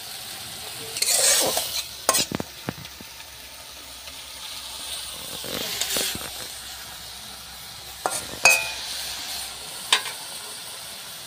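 Chopped bathua greens sizzling in mustard oil in a wok, stirred with a flat metal spatula: a steady hiss with a couple of scraping stirs and a few sharp clicks of the spatula against the pan, about two seconds in and again near the end. The greens are cooking in the water they have let out.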